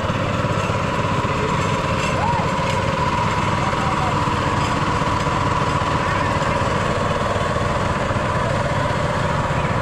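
A small engine running steadily, with a constant low rumble and a thin steady whine over it.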